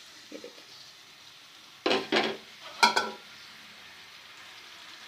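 Coarsely crushed onions going into hot ghee in a pan: two loud clatters about two and three seconds in, then a steady sizzle as they begin to fry.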